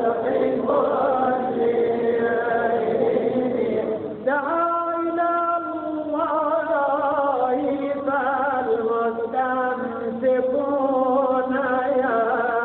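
Devotional qasida chanted in an ornamented, wavering melody, with long held and bending notes; a new phrase begins about four seconds in.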